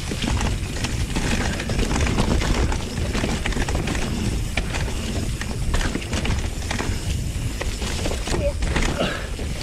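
Mountain bike riding fast down a rough dirt trail: tyres running over dirt and roots and the bike rattling and knocking over bumps, with constant wind rumble on the camera microphone.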